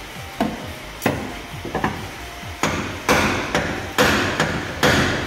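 Hammer striking metal about nine times at an uneven pace, with the heaviest blows in the second half, driving a car door's check-strap parts into place.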